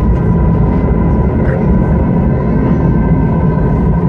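Steady low drone of aircraft engines played as a sound effect through outdoor loudspeakers, with a faint steady high tone over it.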